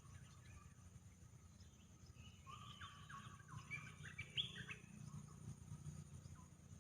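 A bird calling faintly: a quick run of short chirping notes, some stepping up in pitch, starting about two seconds in and lasting a couple of seconds.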